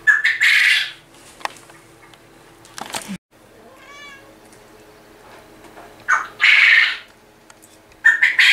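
Male quail calling loudly three times from nearby in the shed, each a harsh burst under a second long: right at the start, about six seconds in, and near the end. In between, a kitten mews faintly once.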